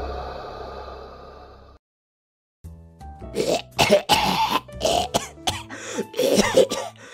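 A person retching and gagging over and over, in loud, uneven heaves that start about three seconds in, with quiet background music under them.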